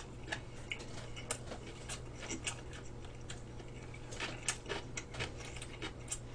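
Close-miked chewing of a mouthful of gimbap: irregular soft clicks and smacks, bunching up about four seconds in, over a steady low electrical hum.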